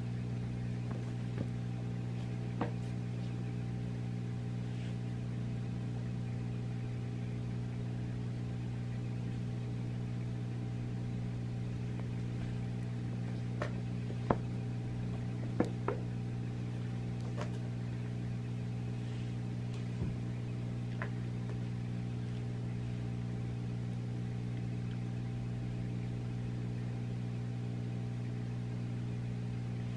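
Steady low machine hum, with a handful of soft knocks and taps, the sharpest a little after fourteen seconds in and again about a second and a half later.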